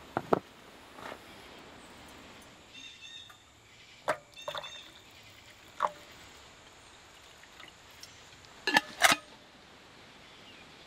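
Camp cookware being handled: a few separate light clinks and knocks of a steel kettle on a small gas stove and a tumbler and its lid, the loudest a double knock about nine seconds in as the kettle is lifted off the stove.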